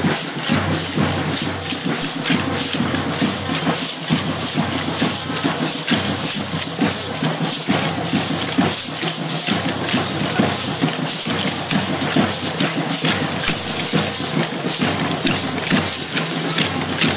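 Dense irregular clicking of many short wooden sticks handled by a large marching group of students, over a steady hiss and a low hum.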